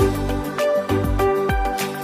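Music with a steady beat: deep bass notes that slide downward in pitch on each beat, crisp percussion strokes, and held melody notes above.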